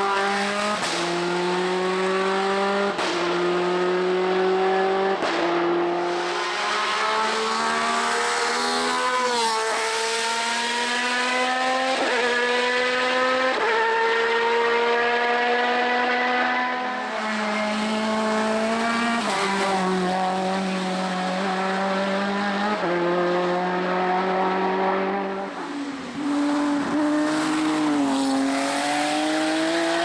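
Race car engine held at high revs, its pitch climbing and dropping in steps every few seconds as the driver shifts through the gears. There are brief sharp cracks at some of the shifts.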